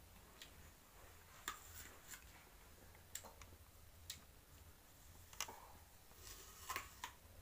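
Near silence: room tone with a low hum and a scattered series of faint, irregular clicks and ticks.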